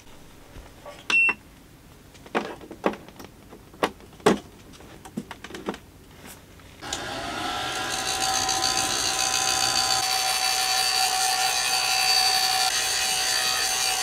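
Scattered light knocks and clicks with one short high beep about a second in, then a mini hair dryer switches on about seven seconds in: its motor whine rises briefly as it spins up, then it blows steadily.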